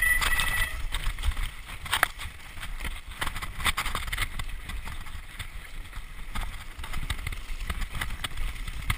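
Mountain bike riding down a rough dirt singletrack: a steady low rumble of wind on the microphone and tyres on the trail, with frequent knocks and rattles from the bike going over bumps. A brief high squeal near the start.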